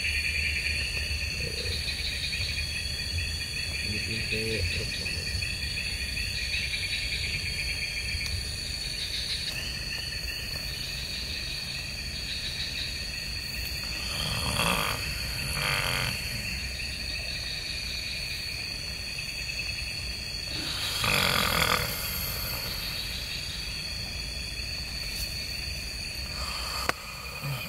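Night insect chorus of crickets: a steady high trill with a pulsing lower chirring under it. Three short noisy sounds break in past the middle, the last and loudest about three quarters through.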